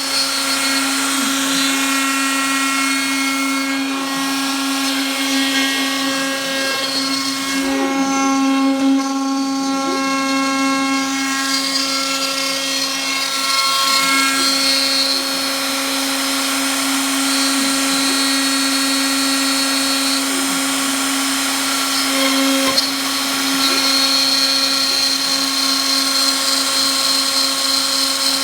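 Home-made CNC router running: a steady whine from the spindle motor, with stepper-motor whines that jump to new pitches every few seconds as the axes change speed and direction.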